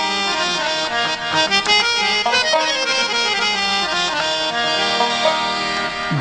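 Instrumental break in a Bengali folk song, its melody carried by a free-reed instrument holding sustained, stepping notes.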